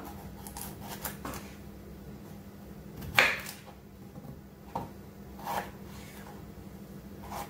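Kitchen knife cutting through raw potatoes and knocking on a wooden cutting board: a handful of separate cuts, the loudest about three seconds in.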